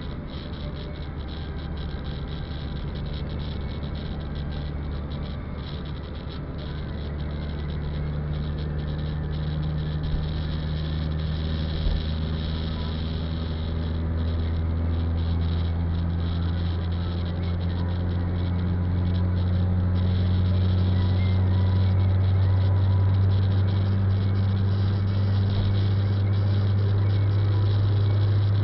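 Car engine and road noise heard from inside the cabin, a steady low drone whose pitch and loudness slowly rise as the car gathers speed.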